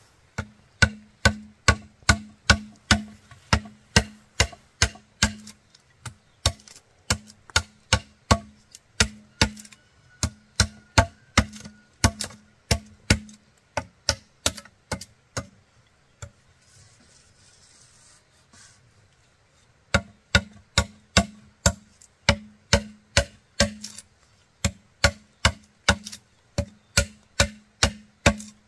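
Steady chopping blows on bamboo, about two a second, each a sharp knock with a short hollow ring. They break off for a few seconds a little past the middle, then start again at the same pace.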